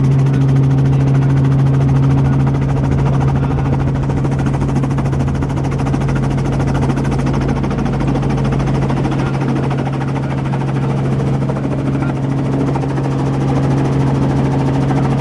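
Helicopter in cruise flight, heard from inside the cabin: a loud, steady drone of the engine and rotor with a strong low hum.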